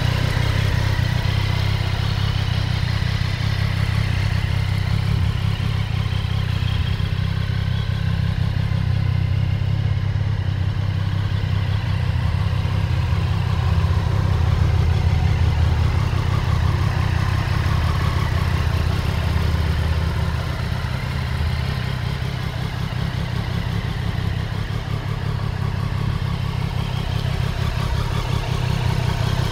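Triumph Street Triple RS's 765 cc inline three-cylinder engine idling steadily.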